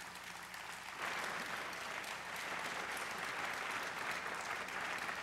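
Large audience applauding; the clapping swells about a second in and then holds steady.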